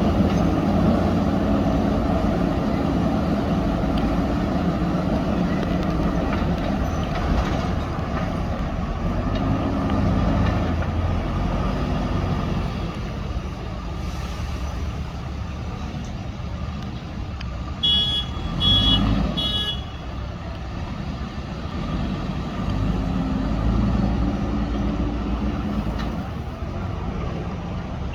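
JCB backhoe loader's diesel engine running under load, its pitch rising and falling as the machine pushes sand. About two-thirds through, three short high beeps sound, like a reversing alarm.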